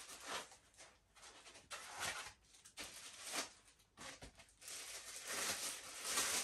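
Polystyrene foam packing caps and plastic wrap being handled: the foam is pulled off a plastic-wrapped telescope tube, with crinkling plastic and foam rubbing in a series of short, irregular rustles.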